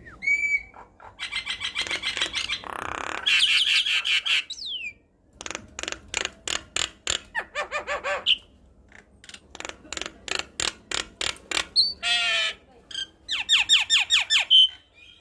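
A Javan myna singing a varied chattering song. It runs fast trains of clicks and rattles, several a second, with a harsh squawk about three seconds in and short whistled slurs scattered through.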